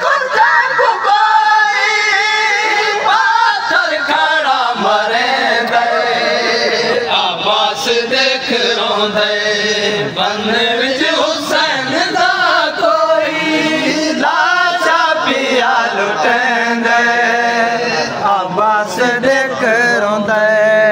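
Men chanting a Saraiki noha, a Shia lament, with several voices singing together over a lead singer on microphones.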